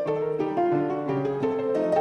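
Background music: a light melody of plucked, harp-like and piano notes.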